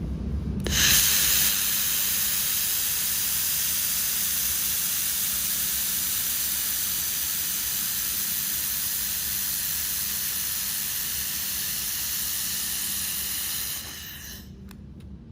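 Handheld laser welder running a weld pass, with compressed-air shielding gas hissing steadily from the nozzle. The hiss starts abruptly about a second in and cuts off near the end. A steady low hum runs underneath.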